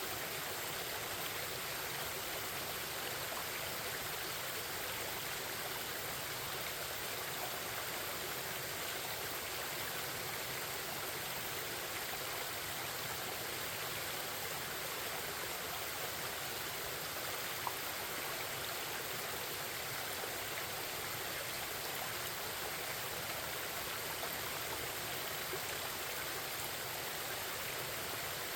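Forest stream babbling and rushing in a steady, unbroken flow of water noise, with one brief tick about two-thirds of the way through.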